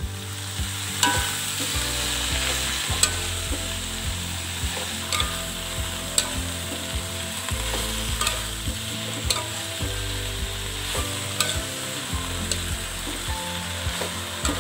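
Food sizzling in hot oil in a pan while being stirred, with the spatula knocking against the pan about once a second.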